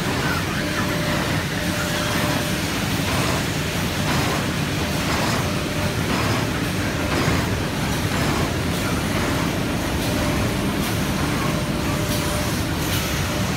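Automatic carton folder-gluer line running: a steady mechanical din with light clatter.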